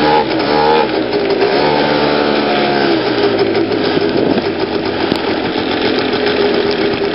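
PGO Rattler 110cc two-stroke scooter engine revving up and falling back twice, then running on at a steady pitch under way.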